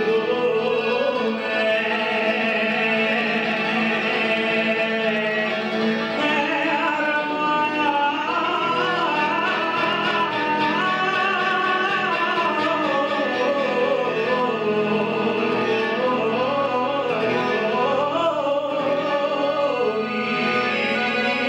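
Sardinian canto a chitarra: a man singing a long, winding, ornamented solo melody with guitar accompaniment.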